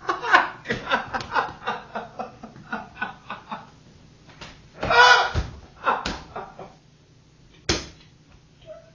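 A man giggling in quick, short bursts, then two louder outbursts around five and six seconds in, and a single sharp smack near the end.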